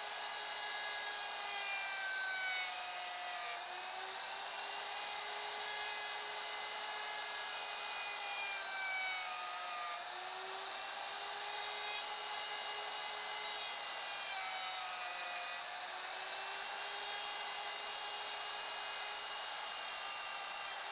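DeWalt DW618 router running with a dovetail bit, cutting half-blind dovetail sockets in a walnut board. Its steady whine sags briefly in pitch several times as the bit takes load plunging into each template finger.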